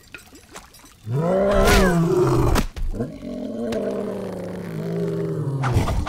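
Large theropod dinosaur roaring, as a film sound effect: a short, loud roar about a second in, then a longer, steadier roar from about three seconds in, cut off by a sudden crash near the end.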